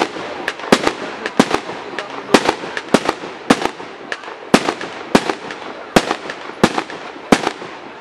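Aerial fireworks bursting overhead: a quick, irregular run of sharp bangs, about two a second.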